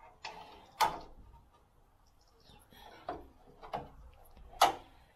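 Sharp metal clicks and knocks as the original A-shaped clips and the aluminium window trim are pushed into a VW T2 passenger door by hand and with a screwdriver. There are four clicks, the loudest about a second in and near the end.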